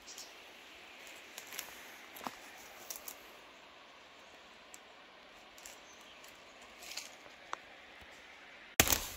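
Footsteps through dry, dead bracken and fallen twigs: scattered faint snaps and crackles over a quiet steady hiss, turning suddenly much louder with close crunching and brushing near the end.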